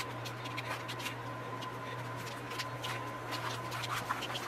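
Kitchen knife cutting raw chicken breast into bite-sized pieces on a plastic cutting board: a string of light, irregular clicks and taps as the blade meets the board, over a steady low hum.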